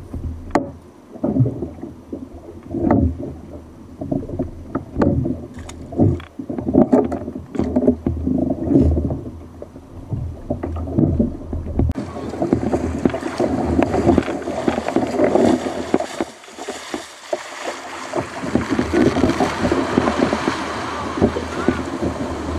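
Water slapping and knocking against a fishing kayak's hull in uneven pulses. About twelve seconds in it changes abruptly to a steady rush of breaking surf and foam around the kayak as it is paddled through the waves.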